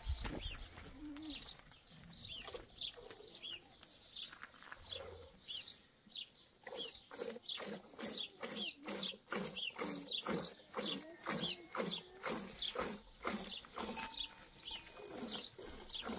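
A goat being milked by hand into a metal pot: short squirts of milk striking the pot. They come sparsely at first, then from about six or seven seconds in settle into a steady rhythm of two or three squirts a second.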